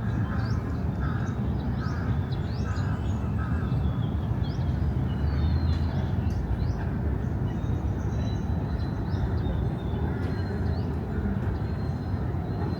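Park ambience: a steady low rumble of city traffic under birds calling, with a run of about five evenly spaced calls in the first two seconds and high chirps and short whistles scattered throughout.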